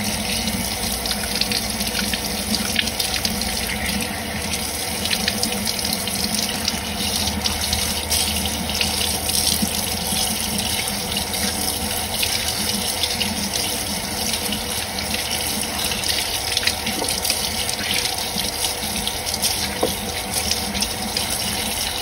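Kitchen faucet running steadily into a sink, the stream splashing over a cleaned blue crab being rinsed by hand, with occasional light clicks.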